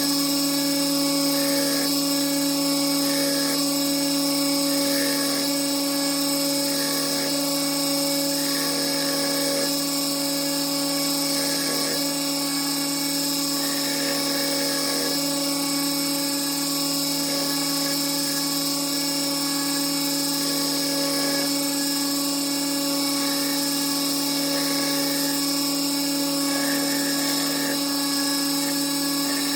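Belt grinder motor running steadily on a 220-grit belt as a forged chef knife blade is ground against it, the grinding noise rising and easing with each pass of the blade.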